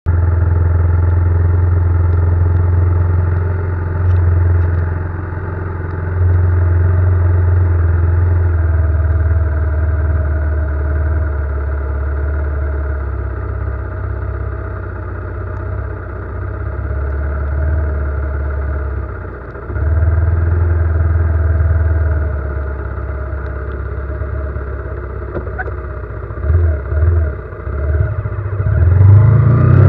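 A road vehicle driving, its engine a low drone that dips and swells, rising in pitch as it speeds up near the end.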